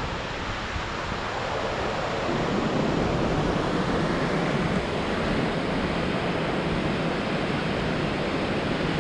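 Steady rushing of a waterfall and whitewater river: a broad, even noise that gets a little louder after about two seconds.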